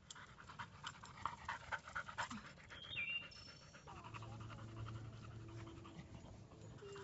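Yellow Labrador retriever panting quickly and faintly, most strongly in the first three seconds.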